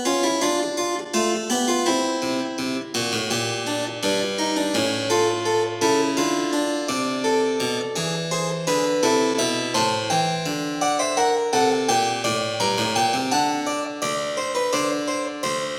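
Background music: harpsichord-like keyboard playing a brisk run of plucked notes over a moving bass line.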